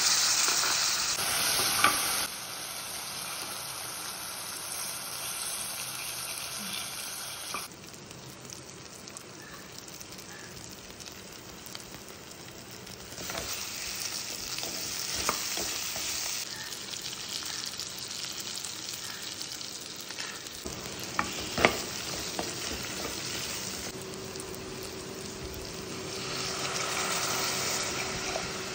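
Chopped onions and tomatoes sizzling in oil in a pan while being stirred with a spatula; the sizzle comes louder and softer in several stretches. A few sharp knocks sound about two-thirds of the way through.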